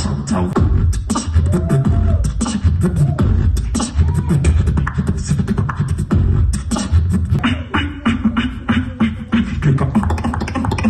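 Live beatboxing into a handheld microphone, amplified through a PA in a large hall: rapid snare-like clicks over a heavy, continuous bass, with a few short gliding vocal tones.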